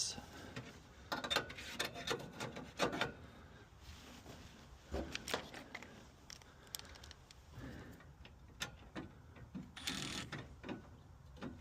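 Irregular small clicks and taps of hand work on metal parts, bunched in the first few seconds, with a short scraping sound near the end: a furnace's hot surface igniter being reinstalled by hand.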